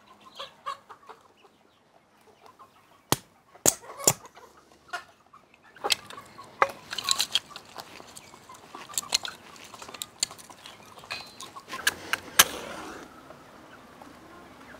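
A hen clucking now and then, among sharp cracks and knocks of thin wooden kindling sticks being handled and laid into a metal grill. The loudest knocks come about three and four seconds in and again near twelve seconds.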